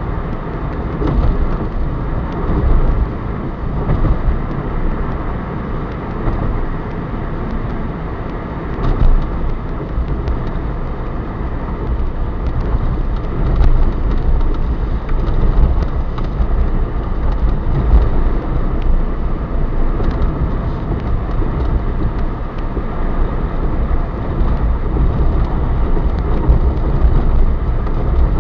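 Steady road and engine noise inside a moving car's cabin, tyres rolling over the asphalt at a steady speed. A few brief knocks stand out.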